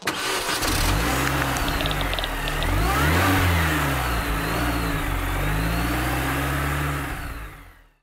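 Car engine revving up and back down twice, used as the sound effect of a logo intro, fading out near the end.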